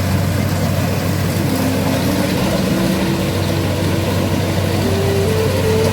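Farm machine engine running steadily with a deep hum. From about one and a half seconds in, a whine climbs in steps.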